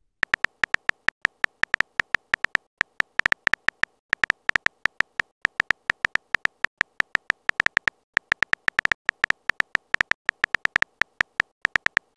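Phone keyboard tap sound effect: a quick, uneven run of short clicks, about five a second, one for each character as a text message is typed out.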